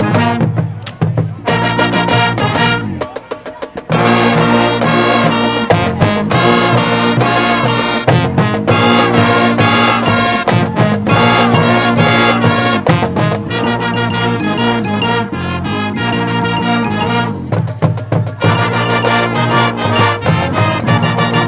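High school marching band playing a loud, brass-led passage of its field show, breaking off briefly about three seconds in and again about seventeen seconds in.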